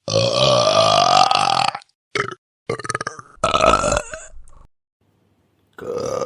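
A run of burps: one long drawn-out burp rising in pitch, then several shorter choppy ones, a pause of about a second, and another burp starting near the end.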